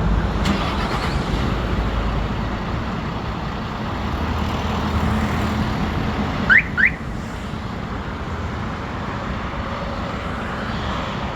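Hyundai Mega Truck's turbodiesel engine idling steadily after a remote start. About six and a half seconds in, the fitted alarm's siren gives two short rising chirps in quick succession.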